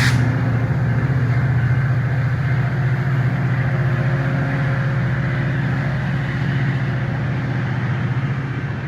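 Diesel locomotive of a passenger train running steadily, a loud, even low drone, with a sharp click right at the start.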